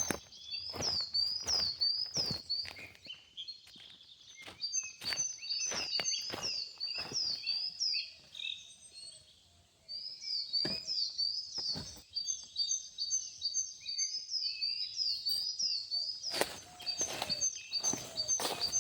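A bird repeating short chirps over and over, mixed with sharp snaps and crackles of leaves and twigs being broken off by hand. Both drop out briefly about nine seconds in.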